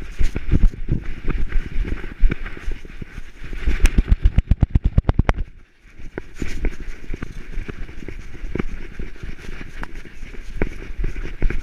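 Dog-mounted action camera jostled as the dog runs: irregular thumps of its footfalls and the harness knocking against the camera, with a fast, even run of knocks about four seconds in and a short lull just before six.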